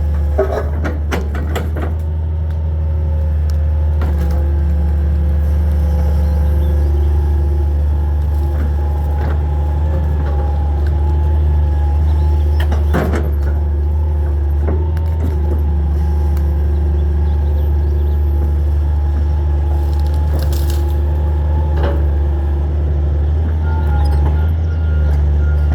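Hitachi 225 excavator's diesel engine running steadily, with occasional sharp cracks and snaps of wood and debris being broken and moved. Near the end a steady repeating beep starts up.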